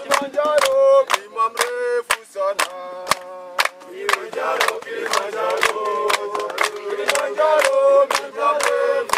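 A group of male voices singing a chant together, with sharp percussive hits such as clapping or a drum keeping time.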